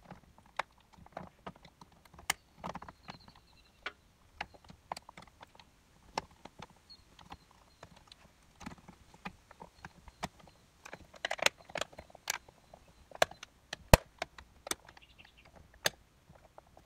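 Rapid, irregular plastic clicks and knocks of a side-mirror cap being pushed and worked onto a Holden VE Commodore's mirror housing, its clips snapping into the holes, played in fast forward. The sharpest knock comes near the end.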